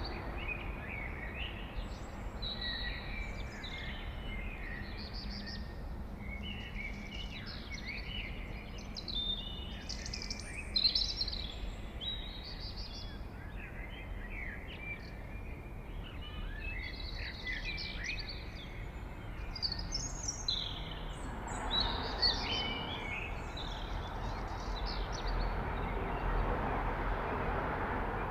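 Blackbird singing, one short warbling phrase after another with chirps and slides in pitch, over a low steady background rumble. A wider hiss swells in the last several seconds.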